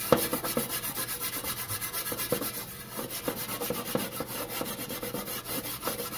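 A Norwex Spirinett scrubber with cleaning paste rubbing in quick back-and-forth strokes over a perforated metal pizza pan, scouring off years of baked-on grime.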